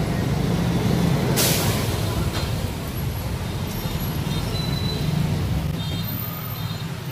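Steady low rumble of road traffic with heavy vehicles, and a short hiss about a second and a half in.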